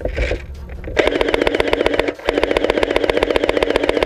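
Airsoft electric rifle firing on full auto: a rapid, even rattle of shots starting about a second in, breaking off briefly, then firing again.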